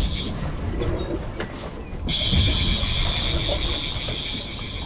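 Boat engines running at trolling speed, a steady low rumble, with a steady high-pitched whine that cuts out about a third of a second in and returns about two seconds in.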